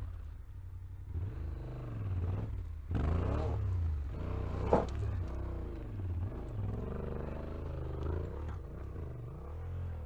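Motorcycle engine revving up and down over and over as it is ridden up a steep, rocky climb, with one sharp knock near the middle.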